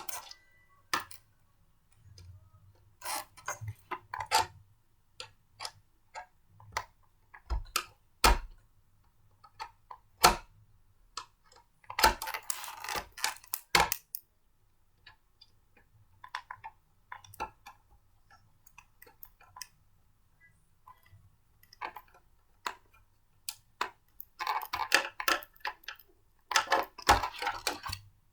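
Parts of a blender being handled and fitted together: scattered clicks and knocks, with bursts of clattering about twelve seconds in and again near the end.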